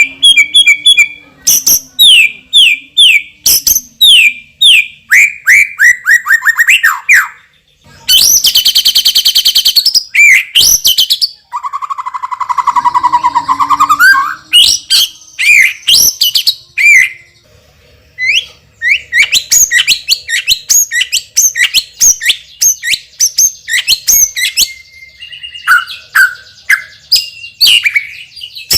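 White-rumped shama singing loudly in a fast, varied run of phrases: rapid descending whistled notes, a harsh buzzing rattle lasting about two seconds, and lower warbled passages, with the mimicked fills that keepers call 'isian'.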